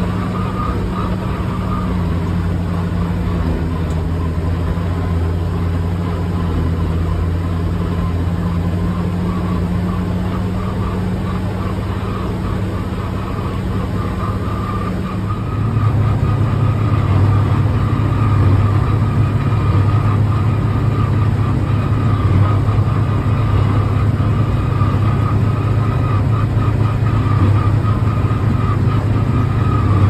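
John Deere 7610 tractor's six-cylinder diesel running steadily under load while pulling a Hesston 7433 baler, heard from inside the cab. About halfway through the drone changes to a louder, deeper hum, with a steady higher whine over it.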